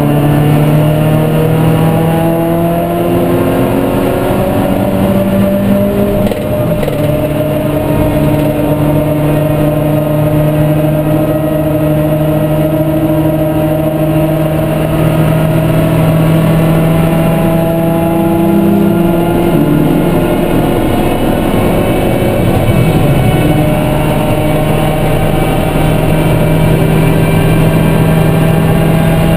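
Supercharged 1.6-litre Toyota 4A-GZE twin-cam four-cylinder of a Corolla race car running hard under load, heard from inside the cabin. Its pitch climbs slowly, dropping briefly about six seconds in and again around twenty seconds in.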